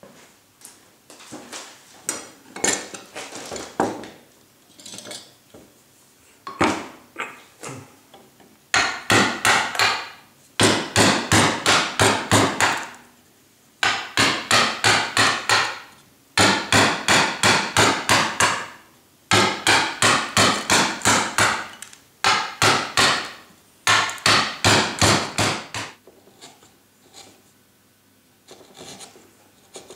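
Mallet striking a carving gouge to cut into limewood, in quick runs of about five strikes a second, each run lasting a second or two. Quieter, scattered knocks in the first several seconds.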